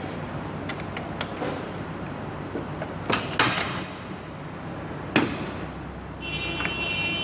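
Scattered metallic clicks and knocks of tools and parts being handled during engine timing-chain work, the sharpest about three and five seconds in. Near the end comes a brief high-pitched squeal.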